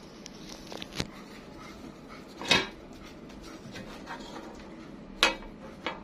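A metal collector's tin being handled: four sharp clicks and knocks of hands on the tin, the loudest about two and a half seconds in and about five seconds in.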